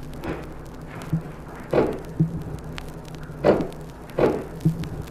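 Mother goat snorting several times: short, sharp nasal blasts a second or two apart. This is the goat's warning call, given on smelling or seeing a dog.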